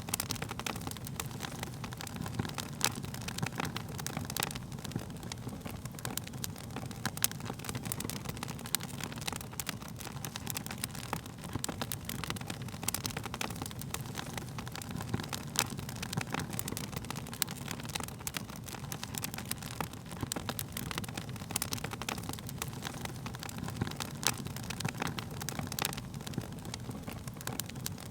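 Wood fire burning, with frequent irregular sharp crackles and pops over a steady low rumble of the flames.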